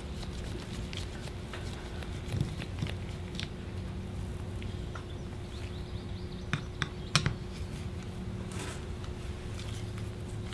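Light clicks and taps of small metal carburetor parts being handled with gloved hands, scattered through the stretch, with the sharpest cluster of ticks about seven seconds in, over a steady low hum.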